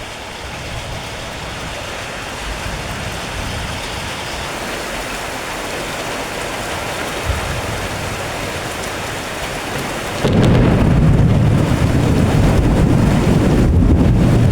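Heavy rain falling steadily in a thunderstorm, slowly growing louder, then a loud, deep rumble of thunder breaks in about ten seconds in and keeps rolling.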